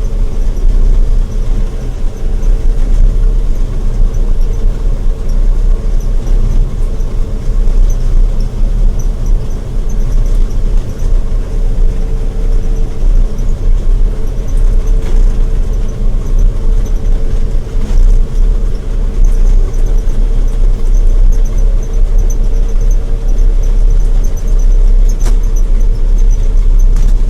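Combine harvester running steadily while cutting soybeans: a loud, even low rumble with a steady hum over it.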